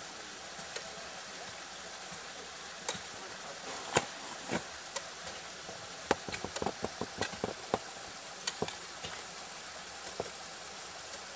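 Sharp clicks and knocks of ice tools and crampons striking a frozen ice wall: scattered at first, then a quick run of about a dozen in the middle, over a steady hiss.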